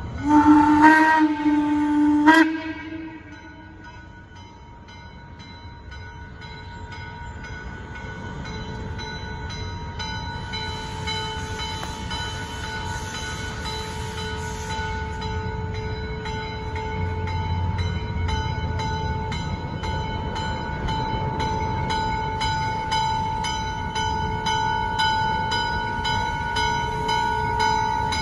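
Mallet steam locomotive No. 1309 sounds one loud steam whistle blast that cuts off sharply after about two seconds. It then draws closer with its bell ringing steadily and a burst of steam hiss midway, the train growing louder as it nears.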